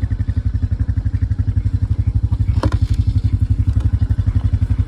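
Engine of a small ridden vehicle running at a steady speed, with an even, rapid low pulsing. A brief high squeak about halfway through.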